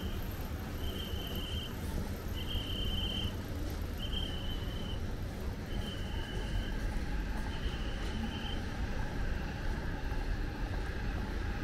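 An insect's buzzing call, five phrases each about a second long and spaced a second and a half apart, stopping about eight seconds in, over a steady low rumble.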